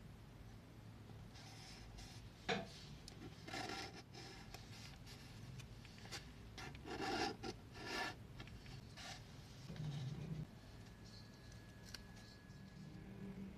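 Paper crafting sounds: orange paper cutouts handled with metal tweezers on a dot-grid journal page, giving short rubs, rustles and scrapes, with one sharp click about two and a half seconds in.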